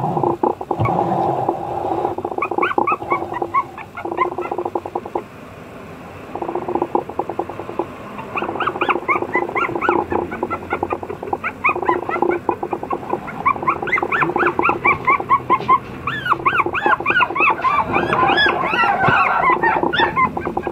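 Puppies whining and squeaking in quick runs of short, high-pitched cries, many overlapping near the end, over a steady low hum.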